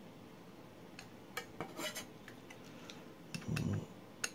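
Small metallic clicks and scrapes of a precision screwdriver turning an oversize screw into a metal drive-sled plate, cutting threads into the screw hole. There is a louder, duller knock of the metal part being handled about three and a half seconds in.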